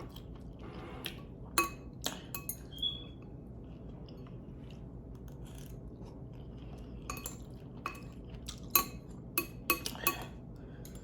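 Eating utensils clicking and clinking against a dish during a meal of noodles: scattered sharp taps, bunched about two seconds in and again through the last few seconds, one of them ringing briefly.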